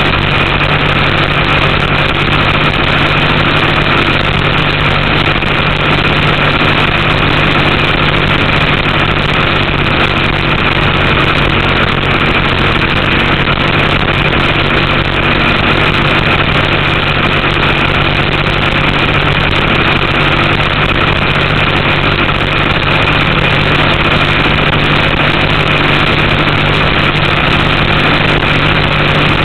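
Race boat's Chevrolet engine running loud and steady under way, its note not changing. The boat is being held below full speed because of an oil pressure problem.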